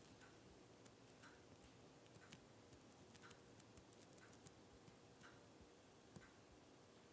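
Near silence: faint room tone with a light tick about once a second.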